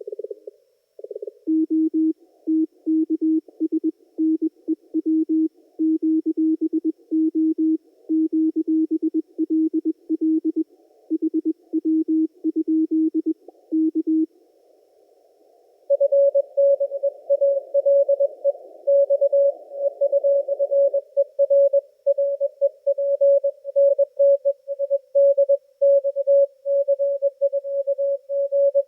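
Morse code (CW) signals received on a Yaesu FTdx10 HF transceiver, heard as keyed beeps. A lower-pitched station sends for the first half; after a short pause with faint hiss, a second, higher-pitched station keys until the end.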